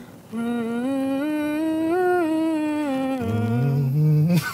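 Humming as a vocal warm-up: a woman hums one long note that glides up and back down. About three seconds in, a man takes over with a lower hum that rises.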